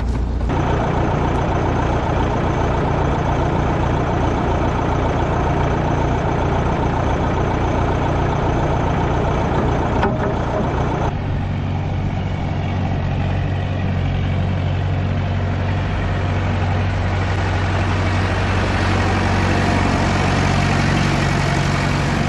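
Old tractor's engine running steadily at a low note; about eleven seconds in its sound changes, dropping to a lower, deeper note.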